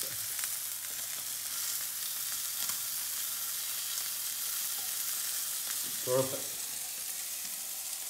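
Chicken breast pieces sizzling steadily in hot oil in a frying pan, crisping and browning, with a few light taps as the pieces are turned over with a wooden utensil.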